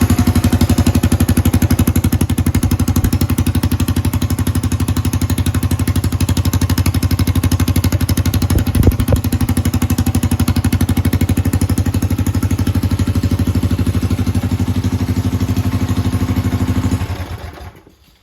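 Mini bike's small engine idling steadily with an even, rapid pulse and a brief knock about halfway. Near the end it is shut off and runs down to a stop.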